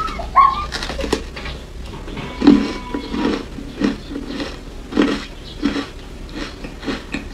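Crunching of ice coated in matcha powder, chewed between the teeth in a run of sharp crunches roughly one or two a second.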